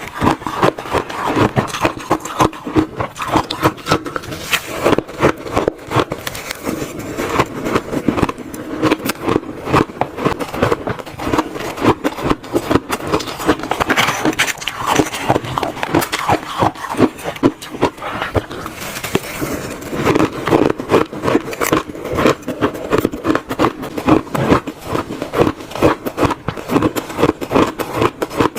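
Close-miked biting and chewing of crunchy shaved ice: a dense, unbroken run of crisp crunches.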